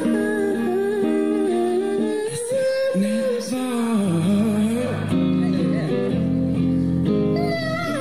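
Live pop song from a reaction video's playback: male vocals sung high in head voice over an amplified guitar.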